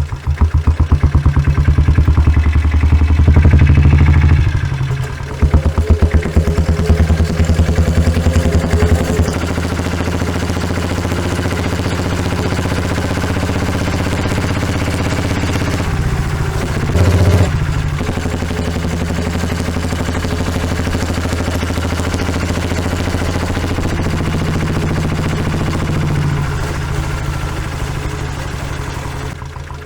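Stock exhaust of a 1996 Royal Enfield diesel Bullet, its single-cylinder diesel engine recorded close to the tailpipe and running with an even pulsing beat. The revs rise for the first few seconds and briefly again about halfway through; otherwise it idles steadily.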